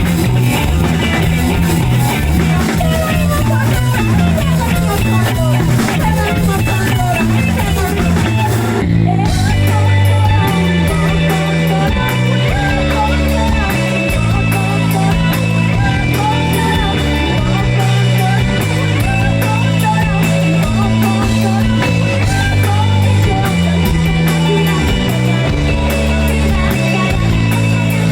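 Rock band playing an instrumental passage: electric guitar, bass and drum kit, with a short break in the cymbals and high end about nine seconds in.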